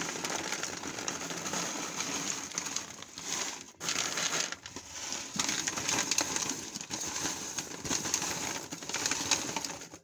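Brown paper bag of freshly microwave-popped popcorn crinkling as the popcorn is shaken out and patters into a plastic bowl: a dense, steady rustling crackle with a couple of brief lulls near the middle.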